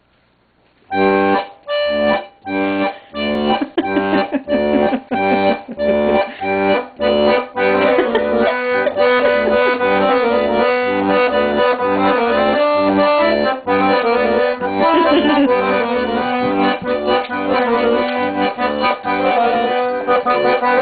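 Accordion playing a tune. It starts about a second in with short, separated chords, then runs into continuous playing from about eight seconds in.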